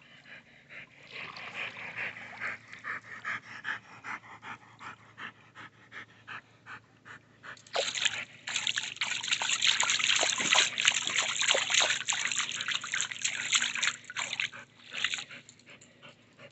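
Pool water sloshing and splashing around an old golden retriever wading in a swimming pool. A quick rhythmic patter of about three a second in the first half gives way to louder, continuous sloshing from about eight seconds in, fading near the end.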